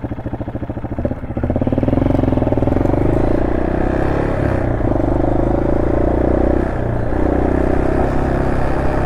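Honda SL230's single-cylinder four-stroke engine running through an aftermarket muffler, with its carburettor re-jetted for the new muffler. It pulls away louder with rising pitch after about a second and a half, and the note dips briefly twice before running on steadily.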